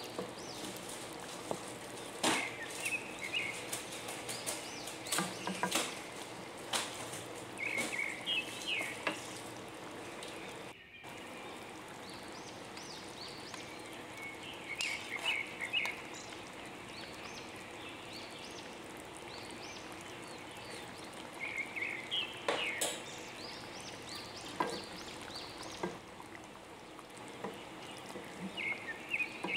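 Okra and beef stew bubbling in a wok while a spoon stirs through it, scraping and tapping against the pan in scattered sharp clicks. Short high chirps come and go a few times over a steady background hiss.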